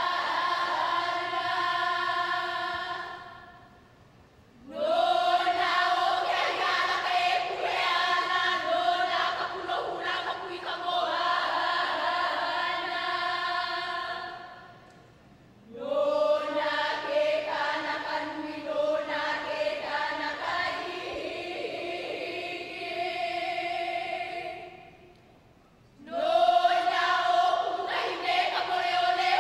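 A group of women chanting a Hawaiian hula kahiko chant in unison, in long held phrases. Each phrase slides up into a sustained tone, and there are three short pauses for breath between phrases.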